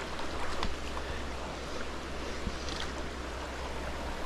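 Stream water running steadily over the streambed, an even rush, with a few faint clicks.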